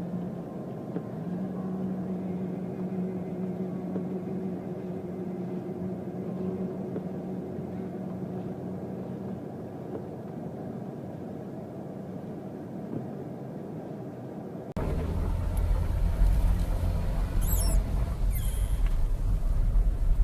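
A vehicle running steadily with a low, even engine hum. About fifteen seconds in it cuts abruptly to strong wind buffeting the microphone with a loud low rumble.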